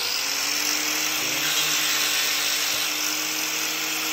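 An electric grinder spins up, reaching full speed just as the sound begins, then runs steadily with a grinding hiss while it puts a point on a marking tool.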